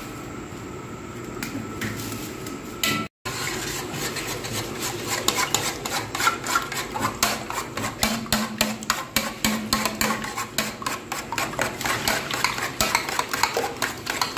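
A spoon beating raw eggs in a stainless steel bowl, clinking rapidly and steadily against the metal side. The beating starts about three seconds in, after a brief dropout.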